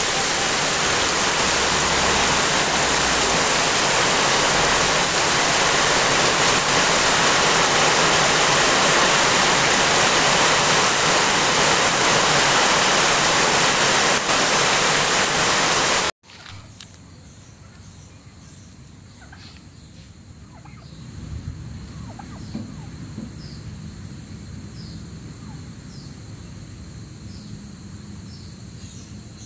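Heavy rain pouring steadily. About sixteen seconds in it cuts off abruptly to a much quieter outdoor background with faint scattered chirps and a steady high tone.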